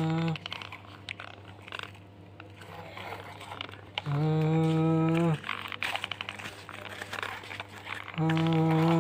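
Plastic toy excavator bucket scraping and scooping loose soil, with faint crumbling and crunching of dirt. Over it, a low buzzy held tone of about a second repeats three times, evenly about four seconds apart, and is the loudest sound.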